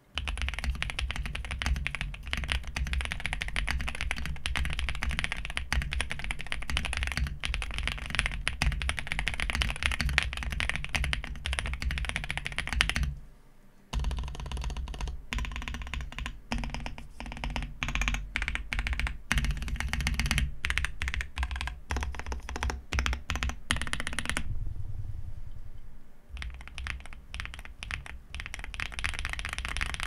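Typing on a Zoom65 mechanical keyboard fitted with factory-lubed Mera Mera no Mi linear switches with long-pole stems: fast, steady keystrokes that stop for about a second partway through, then resume and thin out to slower single key presses near the end.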